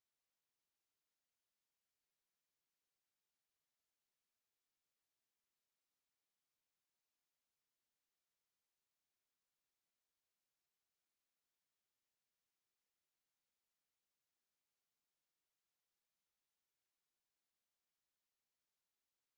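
A pure sine tone at 11797 Hz, a single very high-pitched steady whistle held without change, played as a speaker test and speaker-cleaning tone.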